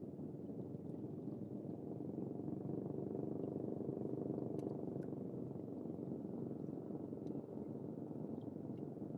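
A small boat's motor running steadily, growing louder about three seconds in and easing off again after about five seconds.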